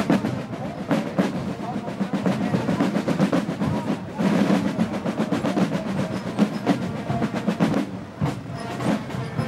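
Basel drums, rope-tensioned parade side drums, playing a Fasnacht march: fast rolls and rapid strokes run on without a break.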